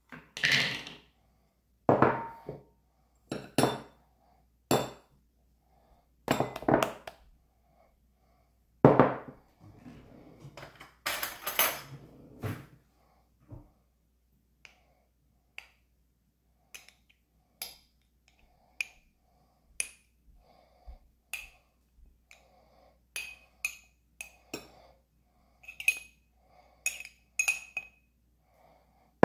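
Kitchen utensils and dishes knocking and clinking in separate strikes, heavier knocks in the first half and lighter, faintly ringing clinks later on.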